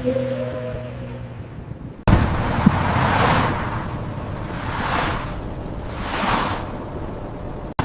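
A car's engine hums steadily for about two seconds, then a sudden cut to snowstorm wind blowing in gusts that rise and fall three times.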